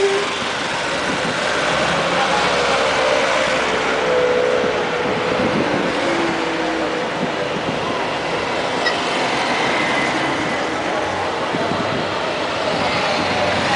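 Classic cars driving slowly past one after another, their engines running steadily, with crowd chatter underneath.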